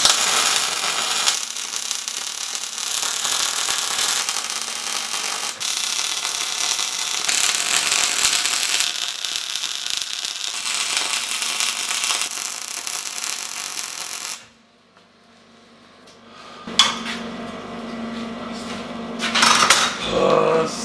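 MAG welder arc crackling and hissing steadily as a bead is laid on steel, stopping abruptly about fourteen seconds in. After a short pause come a sharp knock and more irregular crackling and rattling.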